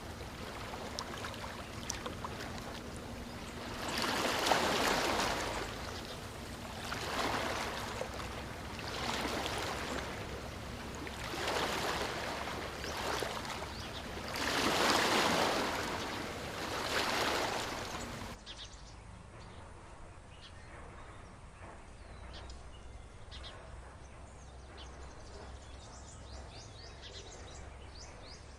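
Rushing water swelling and fading every two to three seconds, like waves washing in. About eighteen seconds in it cuts suddenly to a quieter outdoor background with faint, high bird chirps.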